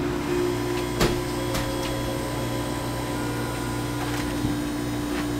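Steady hum of a convenience store's machinery, its refrigerated drink coolers and ventilation, holding a few fixed tones over a low drone, with a few faint clicks.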